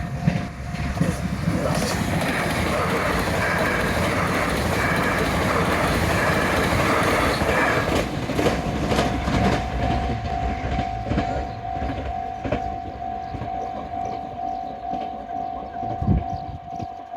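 A train, the 273 series limited express Yakumo, runs over a level crossing with its wheels clattering over the rail joints. A Japanese crossing bell rings its repeated "kan kan" clang throughout. The train's noise covers the bell for about the first eight seconds, and then the bell rings on clearly, about twice a second.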